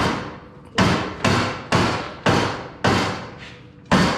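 Rubber mallet striking over and over, about two blows a second, each blow ringing out briefly, as the helmet blower is driven into its mount in a dirt late model race car.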